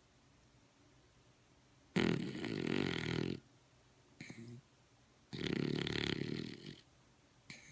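Snoring: two loud, rattling snores about three seconds apart, each followed by a short, softer breath.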